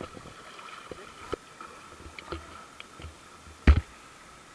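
Footsteps wading through a shallow rocky stream: water sloshing, with scattered clicks of stones and one sharp thump a little past three-quarters of the way through. A faint steady high tone runs underneath.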